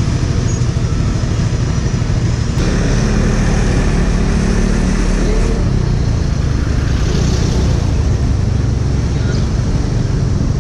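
Suzuki Skydrive Sport scooter's small single-cylinder engine idling, then pulling away about two and a half seconds in and running at low speed.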